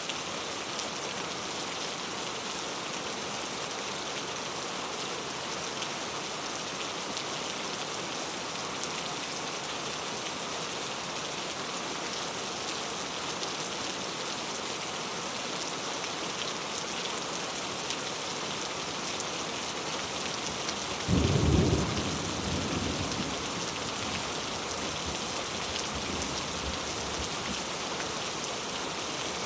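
Heavy rain falling steadily. About two thirds of the way in, a sudden loud clap of thunder rumbles off over a few seconds.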